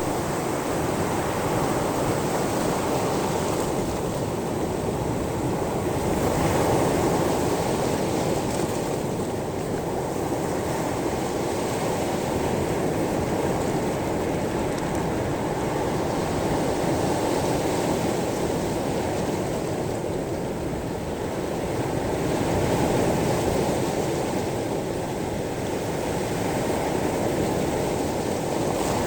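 Sea waves washing over a pebble beach: a steady wash of surf that swells and eases a few times.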